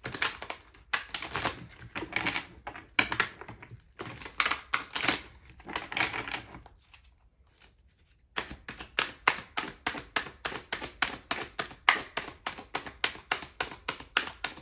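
A deck of oracle cards being shuffled by hand, a rapid run of papery clicks. About seven seconds in there is a short pause, after which the shuffling resumes as quick, even clicks, about five a second.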